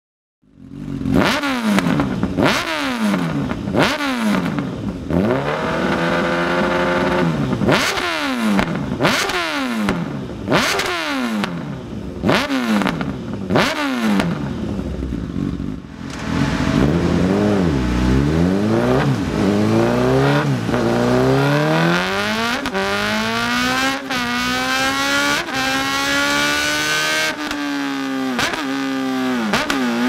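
Honda CB1000R's inline-four engine through an SC-Project SC1-R exhaust, blipped in a quick series of sharp revs that rise and fall. After a brief break about 16 seconds in, it is revved up and held at high revs, the pitch climbing, dropping near the end and climbing again.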